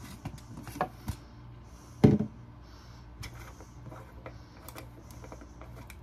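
Light clicks and knocks of plastic parts of a portable mini blender being handled, with one louder thump about two seconds in, over a low steady hum.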